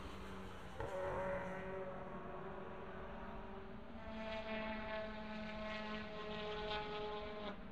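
Distant racing touring-car engines droning around the circuit: a steady engine drone of several held tones that shift slowly in pitch, growing somewhat louder about four seconds in.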